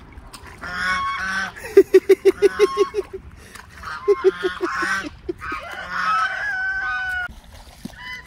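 Domestic geese honking over and over. About two seconds in there are two quick runs of loud, low, clipped calls, about seven a second.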